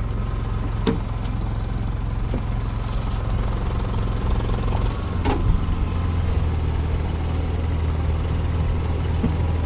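Honda portable generator on an electrofishing boat running steadily, powering the shocking booms. Its hum drops slightly in pitch about five seconds in, and a couple of light knocks come through over it.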